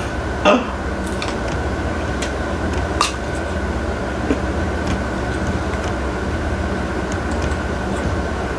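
A steady low mechanical hum, with a thin steady tone above it, like a running fan or air-conditioning unit; a few soft clicks and mouth sounds of someone eating mango come through it.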